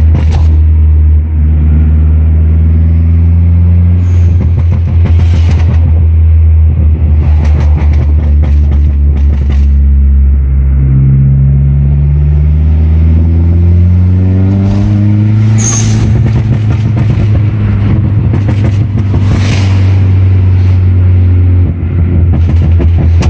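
Dodge SRT-4's turbocharged four-cylinder running through a straight-pipe exhaust on a tuned ECU, with bursts of rapid backfire pops and crackles. About halfway through the engine speed climbs over a few seconds and holds higher. Near the end it drops back with more crackling.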